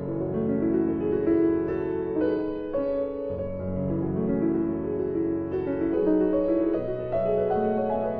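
Background instrumental music played on a keyboard, a run of held notes and chords changing every half second to a second.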